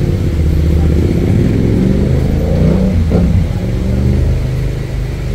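Motor vehicle engine running with a heavy low drone, its pitch shifting up and down about halfway through.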